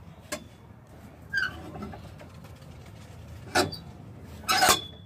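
Handling noise from a phone microphone: rubbing and scuffing as the phone is moved and hair brushes it, with two loud scuffs near the end. A short falling squeak comes about a second and a half in.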